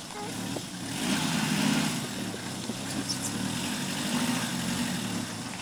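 Suzuki Samurai engine running under load as the 4x4 crawls up a rocky ledge, the revs swelling about a second in and again near the end.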